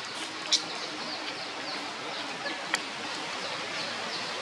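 Forest ambience: a steady rushing hiss with birds giving short, falling chirps over and over. Two sharp clicks stand out, one about half a second in and one a little past halfway.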